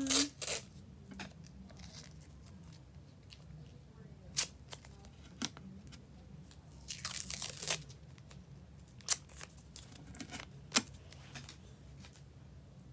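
Masking tape being handled and torn off its roll: faint scattered clicks of handling, with a short burst of tearing about seven seconds in.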